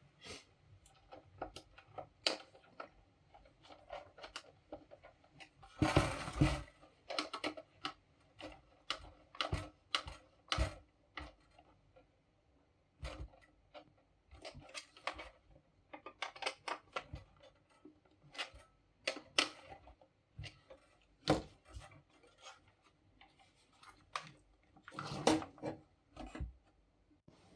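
Irregular clicks, taps and rattles of plastic housing parts and screws being handled while a paper laminator is put back together, with a louder clatter about six seconds in and again near the end.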